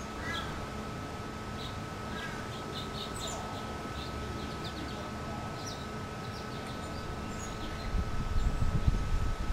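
Small songbirds chirping in short, scattered high calls over a thin steady tone. A louder low rumbling noise comes in near the end.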